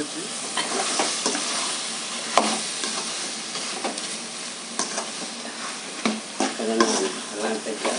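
Chicken pieces frying in thick spiced masala gravy in a metal kadai, sizzling steadily while a ladle stirs and scrapes through them. A few short clinks of the ladle against the pan come about two and a half seconds in and again near five and six seconds.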